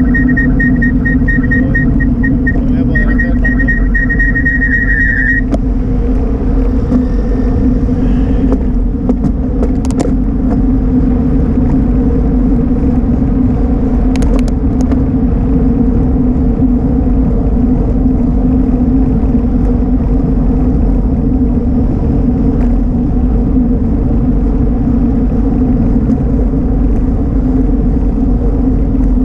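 Steady, loud road and wind noise from a moving bicycle in car traffic, heaviest at the low end, with cars passing. A high, rapidly pulsing tone runs through the first five seconds, and a few sharp clicks come about a third and half of the way in.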